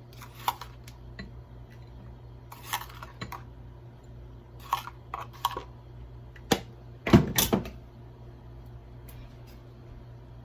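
Kitchen utensils clicking and knocking as ingredients are spooned and measured into a bowl: a scattering of short, separate clinks, with the loudest, a quick run of knocks, about seven seconds in, over a faint steady low hum.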